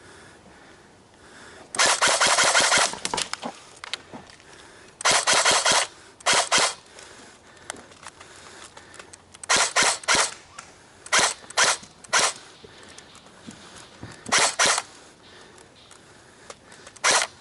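Airsoft gun firing in rapid bursts and short strings of shots, a long burst of about a second starting two seconds in, then several shorter bursts spread through the rest.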